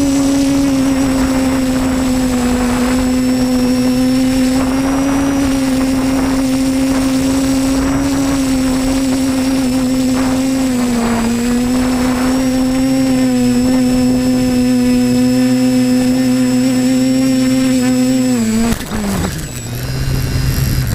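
Quadcopter's electric motors and propellers running at a steady hover, a loud even buzz that wavers slightly in pitch. Near the end the pitch falls sharply and the buzz falters as the quadcopter comes down into the grass.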